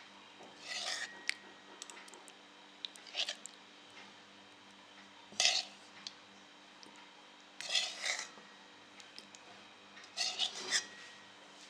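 A metal spoon scraping and clinking against a cooking pan in five short bursts, each about half a second long and roughly two seconds apart.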